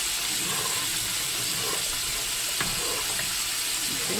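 A large pot of water at a rolling boil, with penne being stirred by a metal spoon and one sharp click of the spoon against the pot about two and a half seconds in, over the steady hiss of chicken deep-frying in hot oil.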